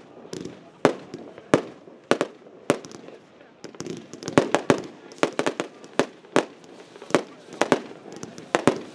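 Aerial fireworks bursting in a show, a rapid, irregular series of sharp bangs. The reports come about one every second at first and crowd together to several a second from about halfway through.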